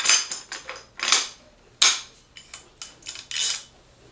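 Sharp metal clicks and clanks as a scoped rifle is handled and set onto a tripod's Arca-Swiss mount, with a brief scrape about three seconds in.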